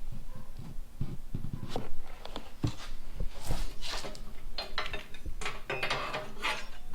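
Hands handling parts and packaging: scattered clicks, light knocks and rustling, getting busier about halfway through.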